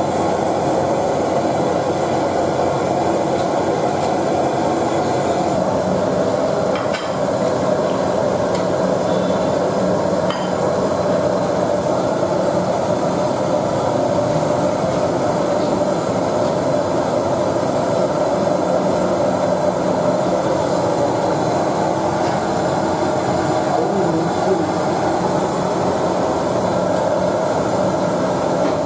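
Steady rushing noise of a gas wok burner under a large wok of boiling broth. A metal ladle clanks against the wok twice, about seven and ten seconds in.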